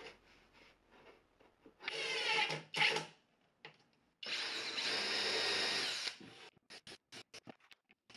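Erbauer EXT brushless cordless drill driving screws to fix a metal louvred vent grille. It runs in short bursts: a brief spin-up about two seconds in, a short loud burst just before three seconds, then a steadier run of about two seconds. A string of light clicks follows near the end.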